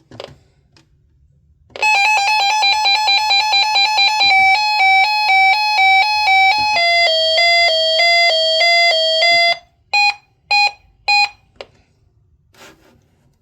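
Weather radio's electronic alert siren: a rapidly pulsing beep tone that steps down in pitch twice, then stops and gives four short separate beeps.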